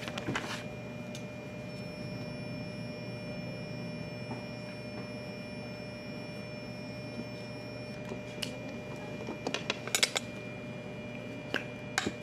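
Quiet room tone with a steady hum. A sheet of paper rustles at the start, and a few light clicks and taps from objects handled on a desk come near the end.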